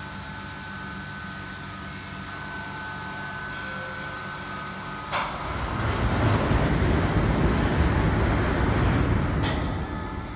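Large vacuum thermoforming machine running with a steady hum. A sharp click comes about five seconds in, then a loud rushing noise for about four seconds that eases off near the end, with another click just before it fades.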